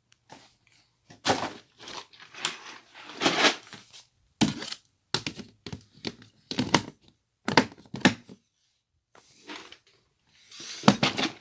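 Boxes and plastic bags being handled: about a dozen separate bursts of crinkling and knocking, with short pauses between them.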